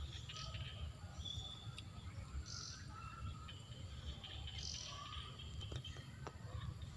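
Outdoor birds chirping and calling in short scattered notes, over a steady low rumble.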